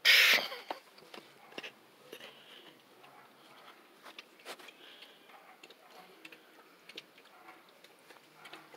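Beagle puppy moving about on gravel and paving stones: a brief loud crunching rustle at the start, then scattered faint clicks and taps.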